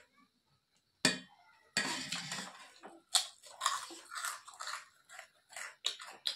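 Close-up chewing and crunching of food, in many irregular bursts that start about a second in.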